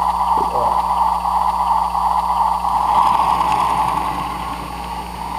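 HO-scale model train running on the layout: a steady engine-like drone with a low electrical hum underneath.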